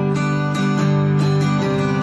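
Taylor acoustic guitar strummed in a steady rhythm, ringing chords between sung lines.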